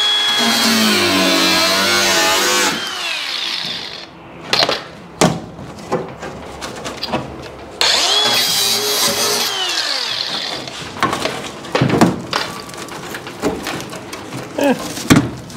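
Angle grinder with a cut-off wheel (zip disc) cutting the sheet steel of a car's wheel well in short runs. The disc whines up and winds down between cuts, with sharp knocks of metal in between.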